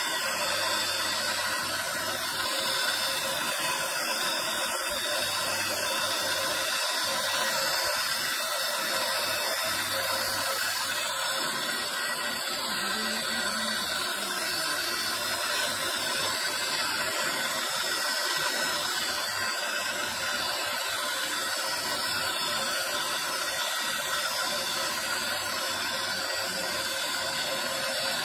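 Electric rotary carving spindle in a stone workshop running steadily, making an even, unbroken noise.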